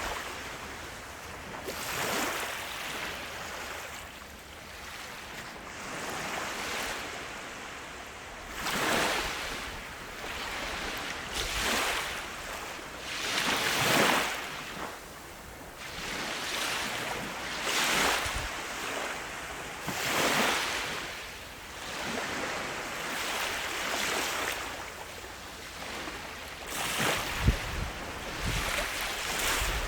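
Ocean surf on a beach: waves breaking and washing up in repeated swells every few seconds. Near the end, low buffeting of wind on the microphone.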